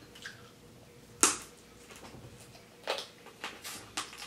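A person eating close to the microphone: one sharp smack about a second in, then a run of smaller clicks and smacks from chewing.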